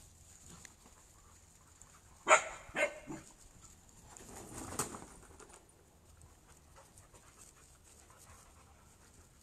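A standard poodle barks three times in quick succession a couple of seconds in, the first bark the loudest, then a quieter rough noise follows for about a second while the dogs play.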